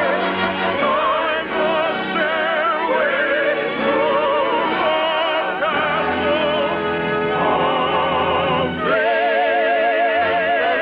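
A song from a stage musical: singing with a wide vibrato over an orchestra, on an old radio broadcast recording.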